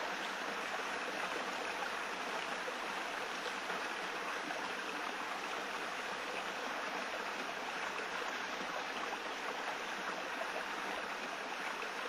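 A steady, even rushing noise, like running water, with no tone or rhythm in it.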